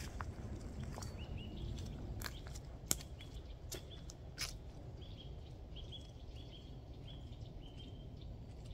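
A small songbird calling over and over in short, slightly rising chirps, against steady low outdoor background noise. Sharp crunching clicks come in the first half.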